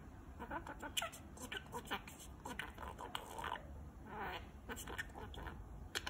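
Budgerigar chattering softly to itself as it drifts off to sleep: a quiet, continuous run of short chirps and clicks.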